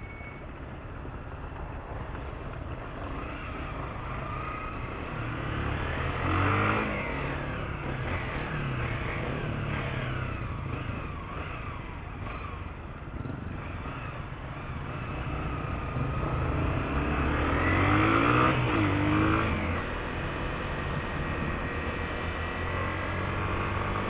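Motorcycle engine heard from the rider's seat, accelerating through traffic. Its pitch climbs twice, about five seconds in and again from about sixteen to nineteen seconds in, over a steady rush of road and wind noise.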